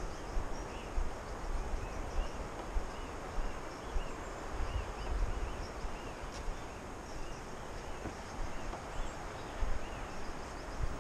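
Footsteps and low thumps from walking a dirt forest trail with a kayak on the shoulder, picked up by a head-mounted camera, with a faint high chirp repeating about twice a second.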